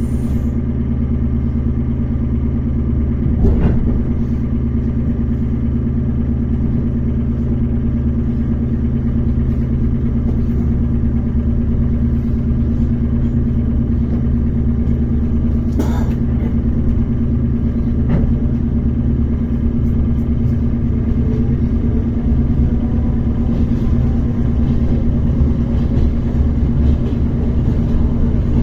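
Inside the passenger car of an ER9T electric multiple unit moving off from a stop: a steady electrical hum over a low running rumble, with a few sharp knocks from the running gear.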